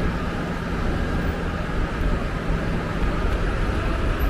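Steady road-traffic noise, a constant low rumble of passing vehicles, with a steady engine hum that stops about three seconds in.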